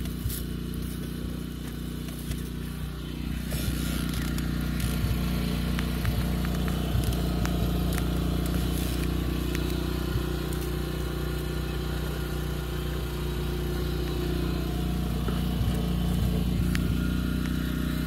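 A steady low engine hum that grows louder about three and a half seconds in, with scattered small clicks and scrapes.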